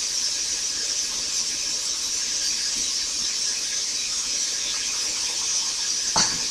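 Ground beef, onion and celery sizzling steadily in a hot cast iron skillet.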